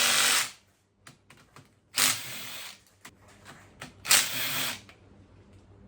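Ratchet spinning in short bursts as the bolts holding the camshaft bridge on a KTM 250 EXC-F cylinder head are undone: one burst ends about half a second in and others come about 2 and 4 seconds in, with small tool clicks between.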